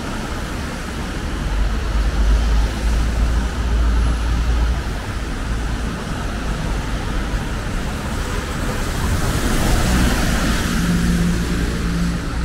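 Road traffic on a wet city avenue: cars passing with tyres hissing on the wet asphalt over a low engine rumble. The rumble swells a couple of seconds in, and a vehicle passes closer about three-quarters of the way through, bringing a rise of tyre hiss.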